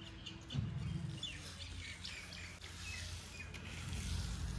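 Small birds chirping in short, scattered calls over a low steady rumble.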